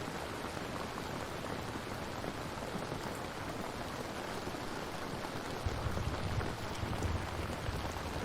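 Steady rainfall: an even hiss of rain pattering down. About two-thirds of the way in, a low rumble joins it.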